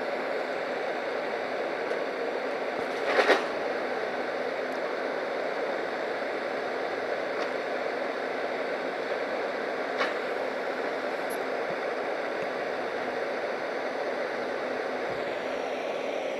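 Backhoe loader's diesel engine running steadily. A short, loud knock comes about three seconds in and a smaller sharp click about ten seconds in.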